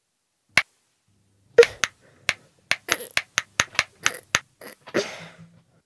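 Plastic wall light switches clicked on and off over and over: a single click, then after a pause a quick run of about a dozen clicks.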